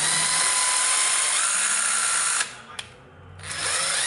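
Ryobi BID-1226 12 V cordless impact driver running free without load, its motor whining steadily. The pitch steps up about a second in as the trigger is pressed further; the tool stops a little past halfway and then spins up again about a second later.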